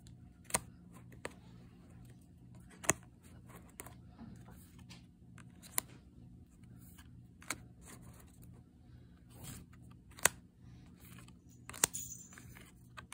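Yu-Gi-Oh! trading cards being flipped through one at a time by hand, each card moved off the stack with a sharp click, about six times, every second or two, over a faint steady hum.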